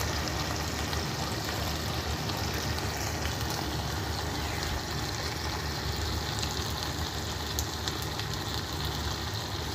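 Steady hiss of keema macaroni cooking gently in a pressure cooker pan on a low gas flame.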